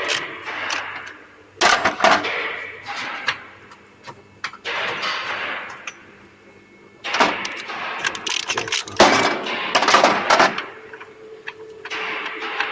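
Hand tools working the bolts of an engine mounting bracket: a ratchet spanner clicking in short bursts of about a second each, with metal clinks in between, the loudest bursts about seven and nine seconds in.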